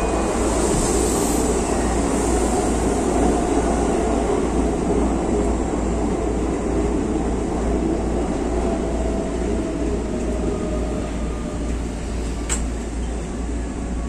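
Steady rumble of a red Keikyu electric train running along the next track, heard from inside the cab of a train standing at the platform, easing off gradually as it moves away, over a low electrical hum. A single sharp click about twelve seconds in.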